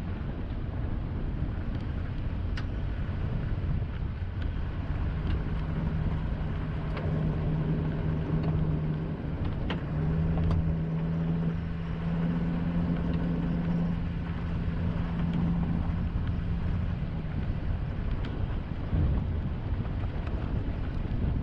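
Vehicle driving on a gravel road: steady rumble of tyres on the road surface, with a steady engine drone from about five seconds in until about seventeen seconds, and a few faint ticks.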